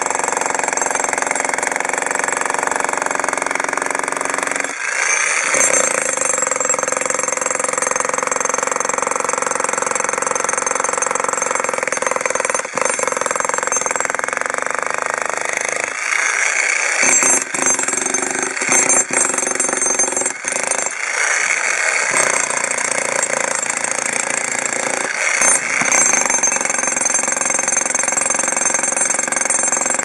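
Arksen 1500W electric demolition hammer running with its chisel bit driven into a concrete slab, breaking it up. It hammers steadily, with a few short breaks as the bit is lifted and reset.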